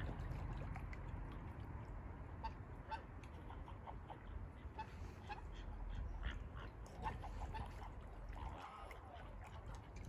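Ducks and swans on a pond calling: scattered short quacks and honks, one after another, over a low steady rumble.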